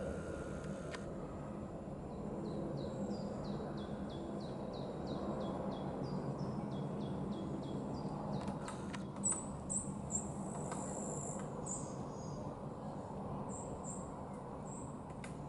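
A woodpecker pecking at oak bark: a few sharp, separate knocks, the loudest three about nine to ten seconds in, and one more near the end. Earlier, another songbird sings a fast run of high falling whistled notes, and high chirps follow, all over a steady low background rumble.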